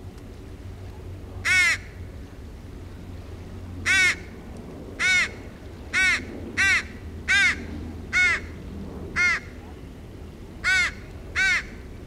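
Fledgling crow begging: about ten short, harsh caws spaced roughly a second apart, each rising and falling in pitch, over a low steady rumble.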